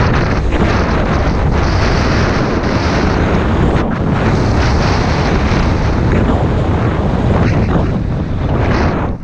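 Loud, steady wind rushing over an action camera's microphone during a fast downhill ski run, mixed with the hiss of skis sliding over snow.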